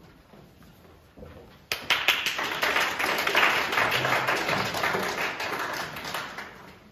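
A small audience applauding, starting suddenly about two seconds in and tapering off near the end.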